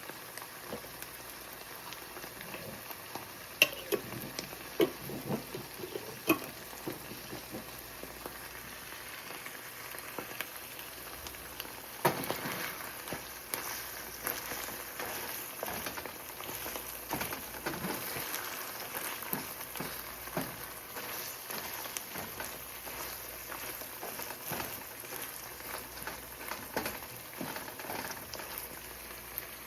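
Egg-white scramble with mushrooms, feta and salsa sizzling and crackling in olive oil in a frying pan, stirred now and then, with a few sharper taps, the loudest about four and twelve seconds in.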